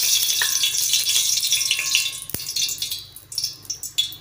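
Cooking oil poured in a stream into a preheated steel pot, hissing as it lands. The hiss thins out about three seconds in, leaving scattered crackles.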